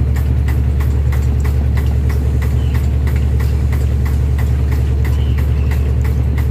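Steady hum of the lube truck's engine and compressor, with a pump clicking in an even rhythm about four times a second as it pushes oil through the line to the nozzle.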